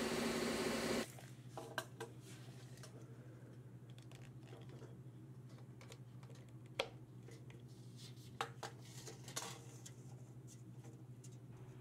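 A power tool runs loudly for about a second, then cuts off. After that, a steady low hum under scattered light clicks and taps from a tape measure being handled against a wooden board, the sharpest about seven seconds in and a small cluster a couple of seconds later.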